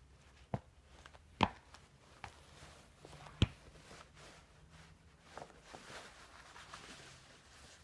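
A few sharp taps and knocks, the loudest about three and a half seconds in, then faint rustling of movement.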